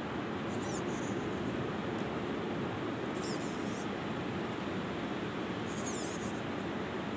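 Brushless motor of an RGT Crusher RC rock crawler whining in three short high-pitched bursts as it is driven in short pulls up a boulder, over a steady background rush.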